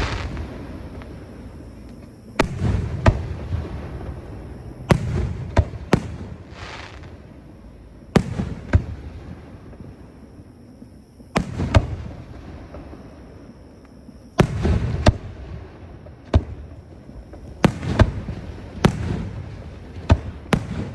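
Aerial fireworks bursting overhead: sharp booms in clusters of one to three every few seconds, each trailing off in a low rumble.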